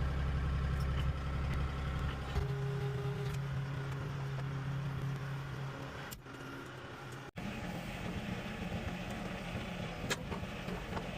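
Compact tractor engine running steadily, with a momentary break about seven seconds in.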